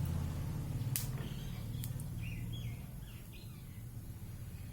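Birds chirping a few short times over a steady low hum that fades after about two and a half seconds, with a couple of sharp clicks.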